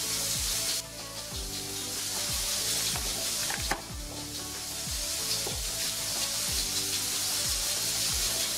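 Hands rubbing and kneading flour in a glass bowl, a dry hissing scrape that drops out about a second in and comes back a few seconds later. Background music with a steady low beat runs underneath.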